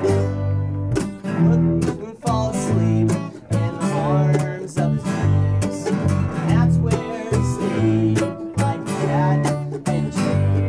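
Acoustic string band playing a bluegrass-style tune: fiddle and cello bowing over a steady strummed rhythm from mandolin and acoustic guitar.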